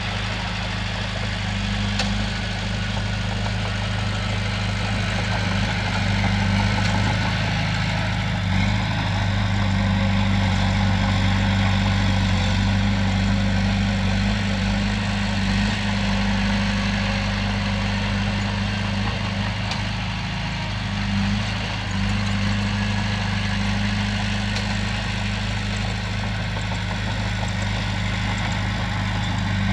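Heavy diesel engine of a Komatsu bulldozer running steadily at work, with a deep, even drone. It swells slightly for several seconds in the middle and eases briefly about 21 seconds in.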